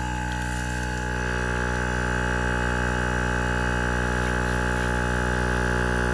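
70mai portable car air compressor running while it inflates a tyre: a steady motor-and-pump hum with a higher whine over it.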